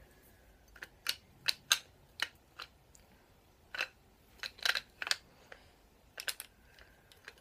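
Metal parts of a chrome snare drum stand clicking and clinking as its threaded tilt joint is twisted loose and the basket arms are folded: about a dozen sharp, uneven clicks, some in quick clusters.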